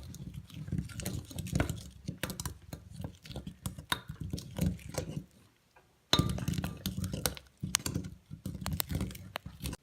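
Glue-and-detergent slime being stirred in a bowl: a run of irregular sticky clicks and small squelches, with light clinks against the bowl. The sound breaks off briefly a little past halfway.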